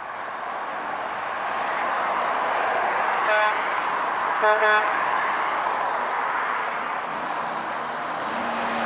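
Traffic passing on a two-lane road as a heavy dump truck approaches, the road and engine noise swelling and easing. A vehicle horn toots once about three seconds in, then twice in quick succession about a second later.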